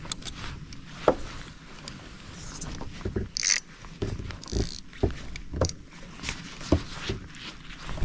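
Scattered clicks, knocks and low thumps of fishing tackle being handled aboard a small boat, with two short hisses about a third and halfway through.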